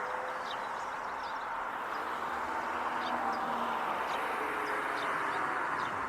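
Steady hum of road traffic, with small birds giving short high chirps again and again.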